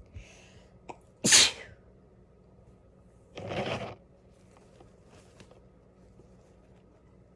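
A person sneezing: one loud, sharp sneeze about a second in, followed about two seconds later by a longer, softer burst of breath.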